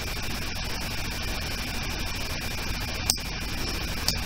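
Steady electrical mains hum with hiss, with a faint click about three seconds in and another about four seconds in.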